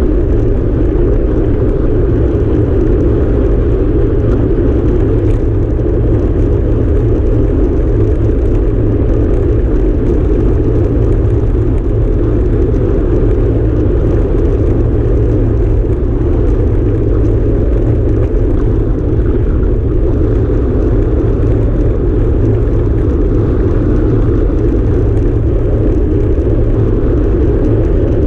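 Steady rush of wind over the microphone, with the hum of a time-trial bicycle's tyres rolling fast on asphalt.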